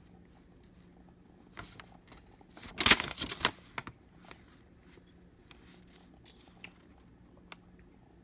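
Handling noise from a plastic power bank being turned over and fiddled with: a brief cluster of clicks and scrapes about three seconds in, with a few lighter clicks before and after.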